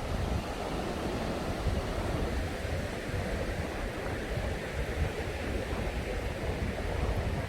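Surf washing onto a sandy beach as a steady rush, with wind buffeting the microphone in a low, uneven rumble.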